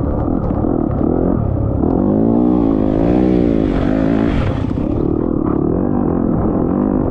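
Off-road race vehicle's engine revving up and down under load, its pitch rising and falling in waves, most clearly between about two and four and a half seconds in.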